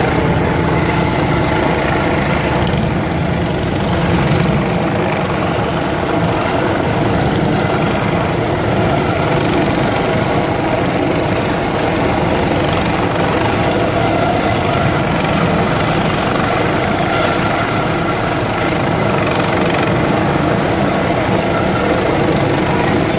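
Steady mixed engine noise of a slow vehicle procession: fire engines, motorcycles and a semi truck with a flatbed trailer rolling past close by.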